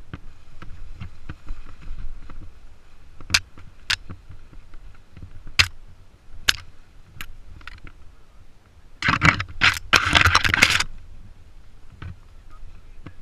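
Mountain bike riding downhill over a rough, overgrown singletrack, picked up by a camera on the rider: a steady low rumble of tyres and frame, with sharp clicks and knocks of chain and frame over bumps. A little past the middle, a loud rustling rush lasting about two seconds as tall grass brushes against the bike and camera.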